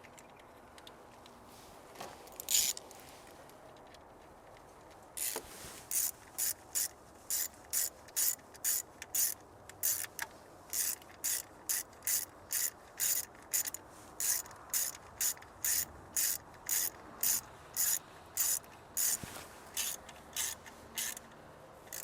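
Socket ratchet clicking as the 10mm bolt holding an ignition coil is run down, in steady strokes of about two a second from about five seconds in, with one short stroke before.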